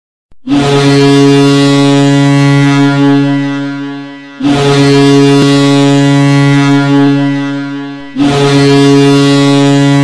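Boston Bruins' ice hockey goal horn, a deep, steady air horn sounding three long blasts of about four seconds each, the first two tailing off just before the next begins.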